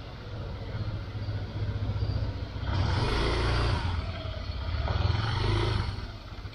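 Motor scooter engine running and revving up as it pulls away, with a louder surge about three seconds in and another near the end.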